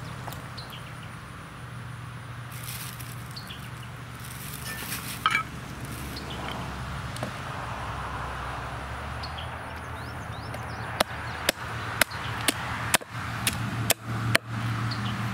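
Fiskars hatchet chopping paddlefish pieces on a wooden cutting board: a run of about eight sharp strikes, roughly two a second, in the last few seconds, over a steady low hum.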